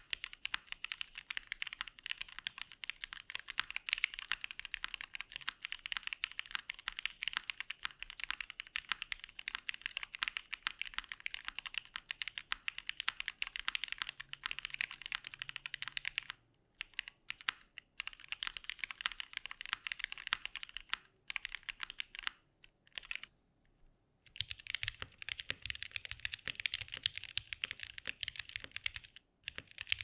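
Continuous fast typing on a 60% mechanical keyboard with lubed and filmed Cherry MX Black linear switches under GMK keycaps, the key strokes clicking in quick succession. After a few short pauses, the last few seconds are typing on a second board, a Tofu60 Redux with vintage Cherry MX Blacks, which sounds deeper.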